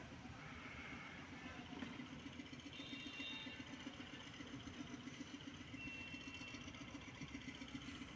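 A steady engine hum with a fast, even throb, as of an idling motor. Two faint short high tones come about three and six seconds in.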